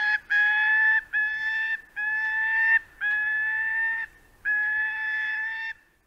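Gyrfalcon calling: the end of one long call, then five drawn-out calls of about a second each, each holding a steady pitch that rises slightly, with short pauses between them.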